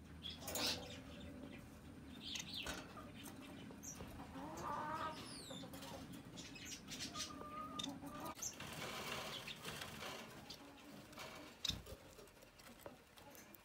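Red-headed finches calling at the nest in a cage: scattered short chirps, a few quick falling whistles and some buzzy calls, with clicks and rustling over a low steady hum.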